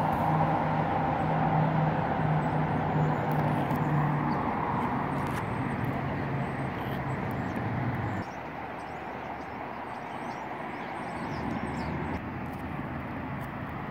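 Road traffic noise, with a steady engine hum that drops away suddenly about eight seconds in, leaving a quieter traffic background.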